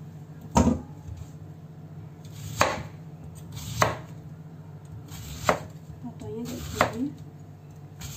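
Kitchen knife slicing through a large white radish (daikon) and striking a wooden cutting board: five separate chops, each one a sharp knock, spaced a second or two apart.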